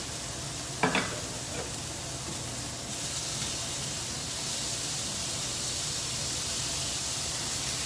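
Chicken breast pieces frying in a pan with a steady sizzle that gets louder and brighter about three seconds in. A short knock sounds about a second in.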